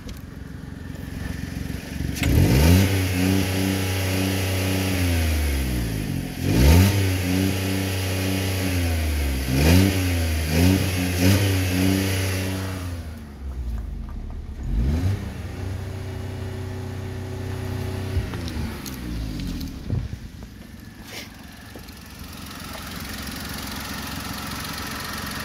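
A VW Polo 6R's 1.2 CGPB three-cylinder petrol engine being revved in about five quick throttle blips, then held at a steady raised speed for several seconds before dropping back to idle.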